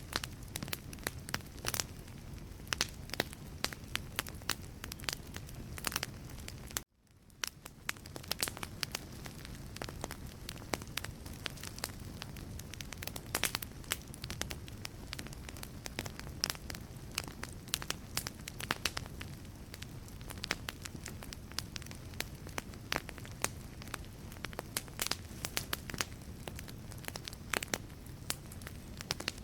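Wood logs burning in a fireplace: a steady low rumble of flame with frequent sharp crackles and pops at irregular intervals. About seven seconds in, the sound cuts out abruptly for a moment and fades back in.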